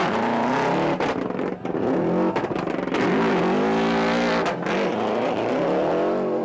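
Subaru Impreza 555 Group A rally car's turbocharged flat-four revving hard as it passes close and pulls away on gravel, the pitch climbing and dropping several times with throttle lifts and gear changes, with a couple of sharp cracks.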